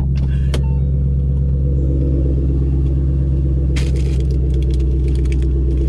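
Car engine idling steadily, heard from inside the cabin. A short clatter of clicks and rustling about four seconds in, as the passenger door is opened.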